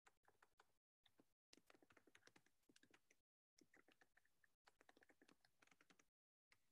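Faint typing on a computer keyboard, irregular quick key clicks, with the sound cutting out to dead silence every second or so as a video call's audio gating chops it.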